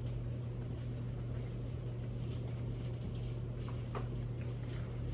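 A steady low hum, with a few faint crunches of someone chewing a taco in a crisp shell.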